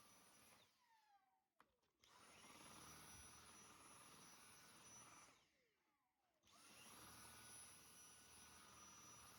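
Dyson V6 cordless stick vacuum running with a steady high whine. It is switched off twice, the motor whine falling away as it spins down, and started again each time.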